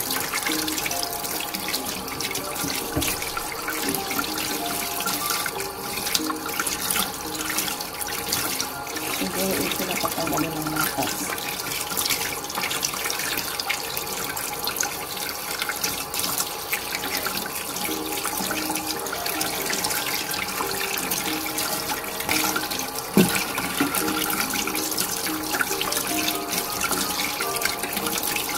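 Tap water running steadily into a stainless steel sink as raw chicken pieces are rinsed and rubbed by hand under the stream, with one brief knock about three-quarters through. Background music plays underneath.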